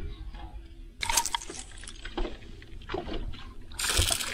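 Choppy lake water slapping and lapping against a small fishing boat's hull. Near the end there is a louder splash as a hooked fish thrashes at the surface beside the boat.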